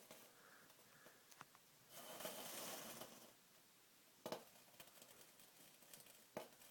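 Faint, irregular ticks and crackles from a freezer, with a soft hiss lasting about a second, starting about two seconds in.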